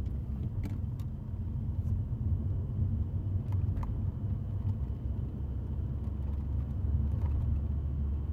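Steady low rumble of a car's engine and road noise heard from inside the cabin while driving, with a few faint clicks.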